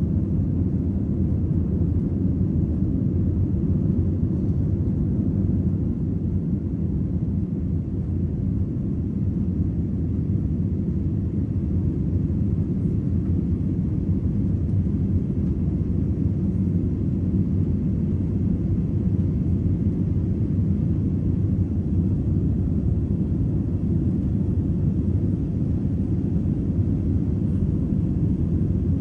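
Jet airliner cabin noise during the climb after takeoff: a steady low rumble of engines and rushing air, heard from inside the cabin.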